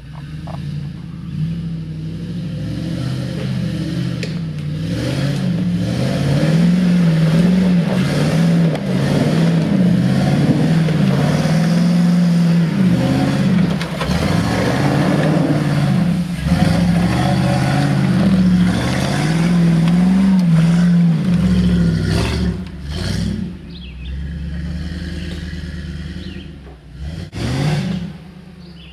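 Jeep Wrangler on 35-inch tires climbing a steep dirt hill, its engine revving hard and repeatedly, the pitch rising and falling over and over under heavy load. Near the end the engine drops back, with one more short rev.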